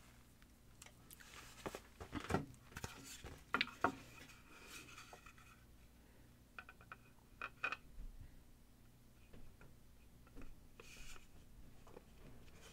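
Faint clicks, taps and rubbing of two 3D-printed plastic mold halves being handled and fitted back together.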